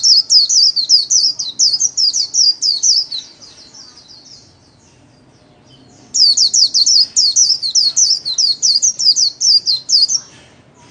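White-eye (vành khuyên) singing its fast 'líu' warbling song: two bouts of rapid, high, downward-slurred notes, the second starting about six seconds in after a short pause.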